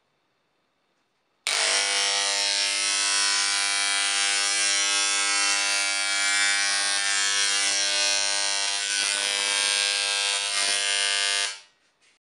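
Corded electric hair clippers buzzing steadily as they cut hair, switched on about a second and a half in and off shortly before the end.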